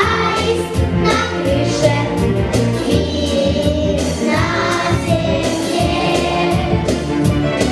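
A song: a group of voices singing together as a choir over an instrumental backing track with a steady beat.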